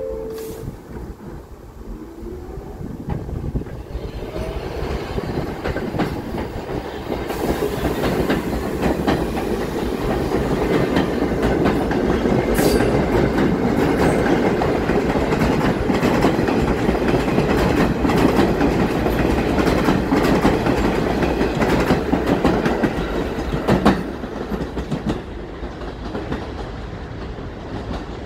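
R46 subway train pulling out of the station and accelerating away. The rumble builds over the first few seconds into a loud, steady run of wheels clacking over rail joints as the cars go by. A sharp knock comes near the end, then the sound fades as the last car leaves.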